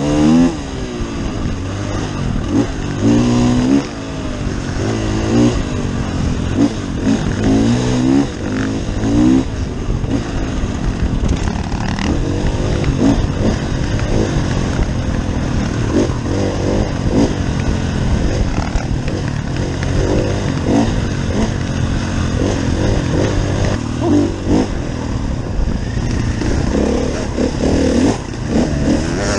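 KTM enduro dirt bike's engine heard from on board, revving up and dropping back again and again as it is ridden over rough trail, with wind rush on the microphone.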